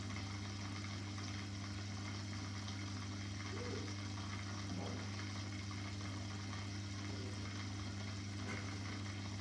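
Aquarium pump running: a steady low hum with a faint watery hiss.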